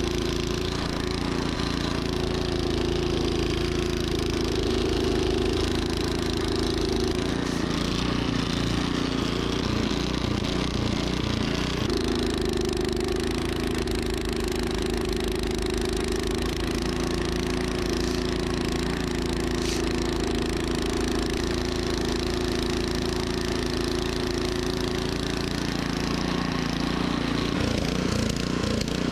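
Troy-Bilt snowblower engine running steadily as it throws snow. Its note wavers for a few seconds about a third of the way in and again near the end.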